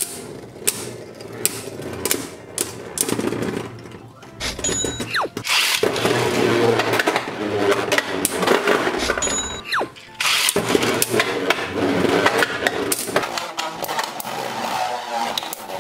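Beyblade Burst tops spinning and clashing in a plastic stadium: sharp clicks of collisions at first, then twice a brief falling whir followed by several seconds of dense metal-and-plastic clattering as the tops knock together and against the stadium walls.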